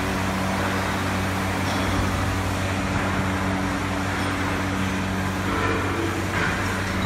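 Gantry CNC plasma cutting machine running: a steady electrical hum under a constant broad hiss.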